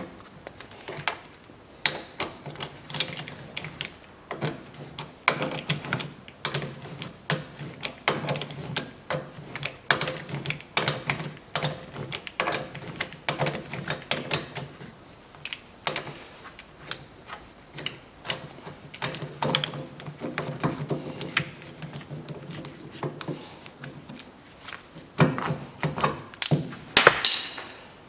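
Ratchet wrench clicking in short bursts as it turns the forcing screw of a three-jaw puller, pressing the rear wheel hub off the stub axle of a VAZ-2110 (Lada 110). A few louder metallic clanks near the end as the hub comes free.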